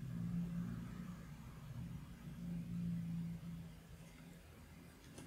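Faint low steady hum that swells and fades slightly a couple of times.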